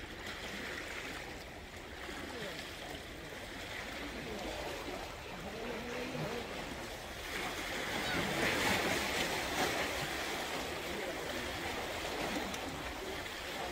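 Small waves washing and lapping against the rocks at the water's edge, a steady hiss of water that grows louder about halfway through.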